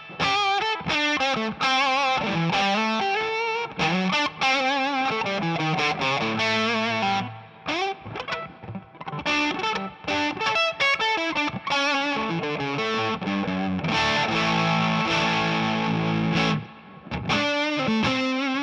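Electric guitar played through the O.C.E. Hammer, a Big Muff-style fuzz pedal: single-note lines with vibrato in the first half, then held chords. The playing shows how the fuzz cleans up a little as the guitar's volume is rolled off.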